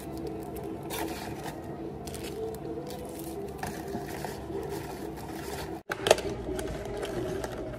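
Paper rustling and crinkling as a small pastry is wrapped and packed into a cardboard box, with a sharp tap about six seconds in as the box is closed. A steady low hum runs underneath.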